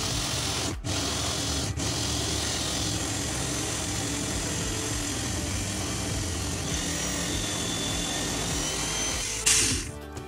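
Electric drill running a hole saw through an MDF cabinet panel: a steady grinding whir that breaks off twice for a moment in the first two seconds, then a sharper, louder burst about nine and a half seconds in before the drilling stops.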